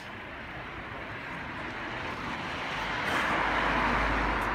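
A road vehicle passing on the street: a rushing noise that swells to a peak about three seconds in and then begins to fade.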